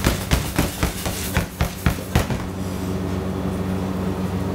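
A quick run of about eight knocks and taps on stainless steel kitchen bowls and a steel pan as an egg-coated croquette is dropped into breadcrumbs and worked by hand, stopping a little after two seconds. A steady low hum runs underneath.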